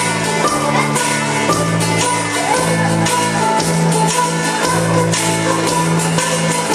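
Live band playing a dance number with a repeating bass line and a steady beat, no vocals.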